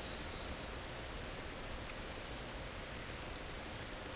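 Insects chirring steadily in the background. A louder high-pitched layer of the chorus fades out within the first second, leaving a thin, steady high whine.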